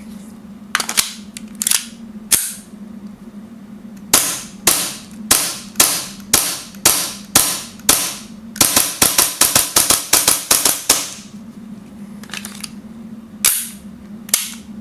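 Armorer Works Hi-Capa 5.1 gas blowback airsoft pistol firing, each shot a sharp crack with the slide's clack. A few spaced shots come first, then a steady string of about two shots a second, then a quick string of about a dozen shots, then three more spaced shots near the end.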